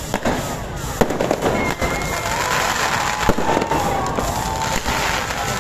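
Fireworks going off: several sharp firecracker bangs over the steady crackling hiss of spark fountains. Wavering whistling tones run through the middle.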